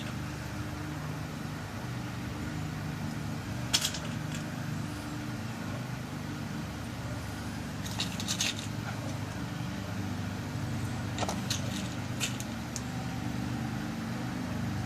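Small sharp metal clicks of lock pins being dropped into a pin-tumbler lock cylinder while it is loaded with a new key code. There is a single click about four seconds in, a few more around eight seconds, and a quick run of ticks near the end, all over a steady low hum.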